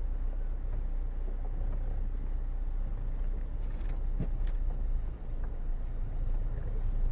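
Low, steady rumble of an idling vehicle engine, with a few faint ticks about midway.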